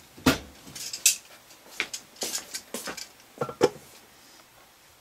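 A run of sharp clicks and light metal clinks, about seven in under four seconds, from handling a Knives of Alaska Lightweight Hunter folding knife and small tools on a wooden workbench.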